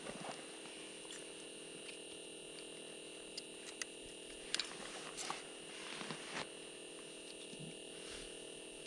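Quiet, steady faint hum with scattered small clicks and rustles from an ice-fishing rod and spinning reel being handled, mostly between four and six and a half seconds in.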